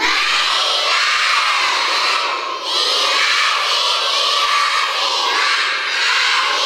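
A large group of young schoolchildren shouting together in unison in a school gymnasium. It comes as two long calls, with a short break about two and a half seconds in.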